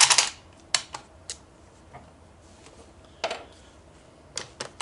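A handful of scattered sharp clicks and clacks from a Yugoslavian M48 bolt-action rifle and its cartridges being handled while it is loaded for firing.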